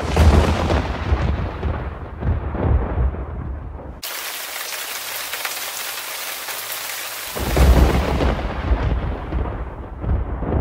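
Thunderstorm: a loud thunderclap at the start rumbling away over about four seconds, then heavy rain starting suddenly, with a second roll of thunder over the rain about three seconds later.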